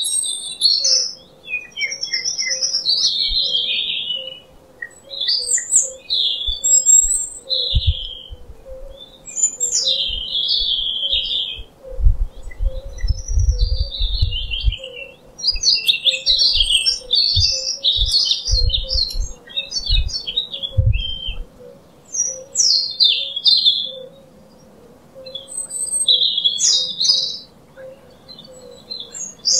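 Songbirds chirping and singing in quick, high phrases with short pauses, over a faint steady hum. Bursts of low rumble come between about 8 and 21 seconds in.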